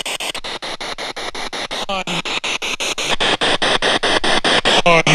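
Spirit-box radio scanner sweeping through stations: a loud hiss of static broken by rapid, even ticks about eight a second. A short radio voice fragment comes about two seconds in and another near the end, which the investigators hear as a spirit saying "hi".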